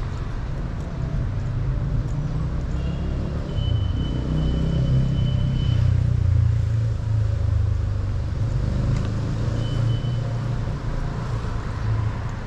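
Road traffic on a city street: a steady low rumble of passing vehicles that swells through the middle. A thin high tone sounds for about three seconds a few seconds in and again briefly near the end.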